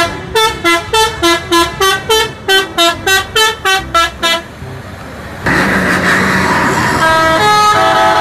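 Tour bus telolet air horn playing a quick tune of short toots, about three a second at changing pitches, for the first four seconds or so. After a short lull comes a burst of rushing hiss, then a few longer horn notes near the end.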